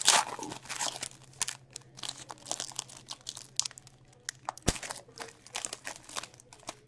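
Foil hockey card pack wrappers crinkling and tearing as they are opened by hand, a dense run of crackles that is loudest at the start, with one sharp click about two-thirds of the way through.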